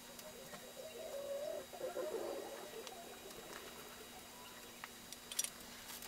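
Greased steel camshaft being slid by hand into the cam bearings of a bare Ford 396 FE V8 block: a low wavering groan for about two seconds, then light metal clicks and one sharp clink near the end.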